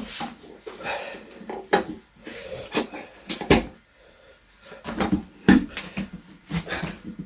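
Irregular knocks and clicks of tools and rim clips being handled while a motorcycle tyre is worked onto its wheel, about a dozen in all, the loudest about three and a half and five and a half seconds in.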